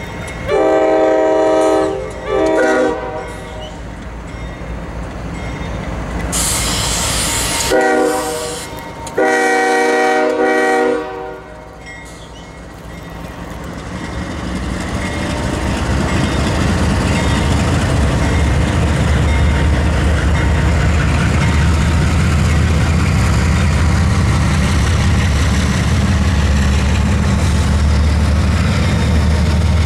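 CSX freight train's diesel locomotive air horns sounding a multi-note chord: a long blast and a shorter one at the start, then a short blast and a long one around eight to eleven seconds in. After that the locomotives roll through the crossing with a steady, loud diesel engine rumble and wheels on the rails.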